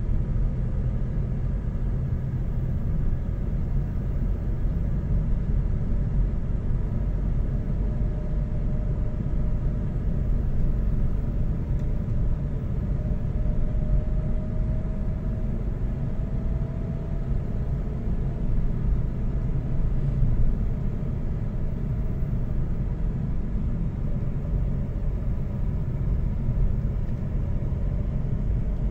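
Car driving along a paved road, heard from inside the cabin: a steady low rumble of engine and tyres, with a faint whine that drifts slowly up and down in pitch.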